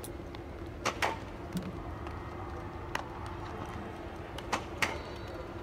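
Sharp pops of baseball infield practice, balls being hit and caught in leather gloves: a pair about a second in, one about three seconds in and another pair near the end, over a steady low hum of the ballpark.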